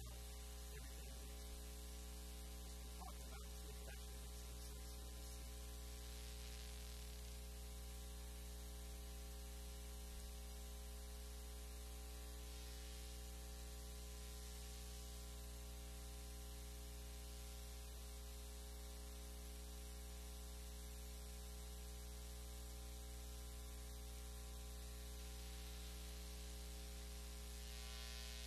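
Steady electrical mains hum with a row of even overtones and a background hiss, at a low, unchanging level.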